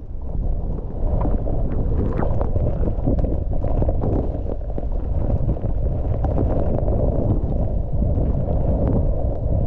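Steady wind and snow rush on a camera microphone packed with powder while skiing fast through deep snow, heard as a muffled low roar with scattered small knocks.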